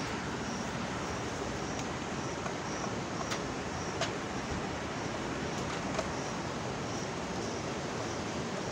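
A few sharp clicks of a small screwdriver working the screws in a toy RC car's plastic underside, over a steady background hiss.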